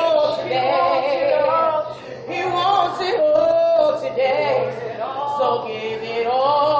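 A woman and a man singing unaccompanied in two voices, holding long notes with a wavering vibrato.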